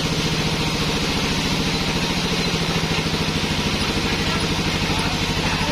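An engine idling steadily with a fast, even beat.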